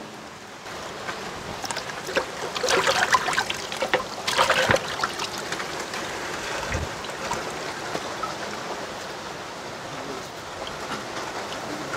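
Water splashing and dripping as raw mutton legs are washed by hand in a large aluminium pot of water, loudest in two splashy spells about three and four and a half seconds in.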